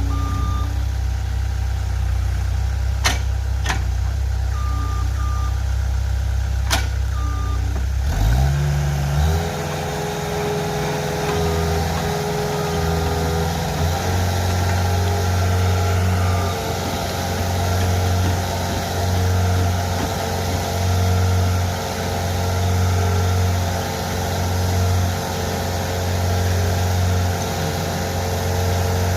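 Heavy machine's engine idling with short intermittent reversing beeps and a few sharp clicks, then revving up about eight seconds in and running steadily at higher revs.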